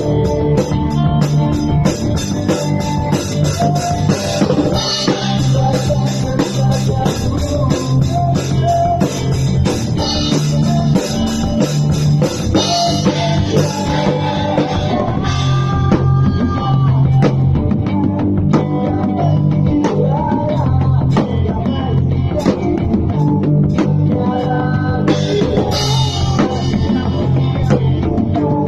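A rock band playing: a drum kit keeping a steady beat under electric guitar and bass, with a lead melody line over it.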